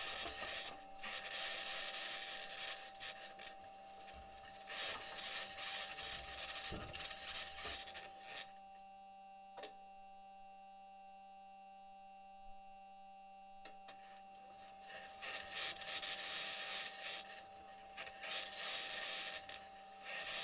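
Perseverance Mars rover driving: the wheels and suspension grind and rattle against the rocky ground, with a high-pitched scratching. About eight seconds in the grinding drops away for some five seconds, leaving only a faint steady hum, then starts up again.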